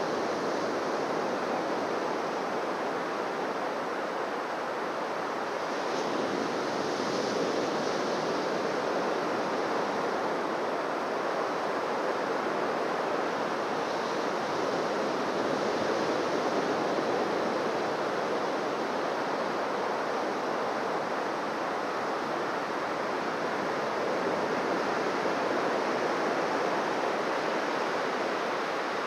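Ocean waves breaking and washing onto a beach: a continuous surf rush that swells gently in loudness every several seconds.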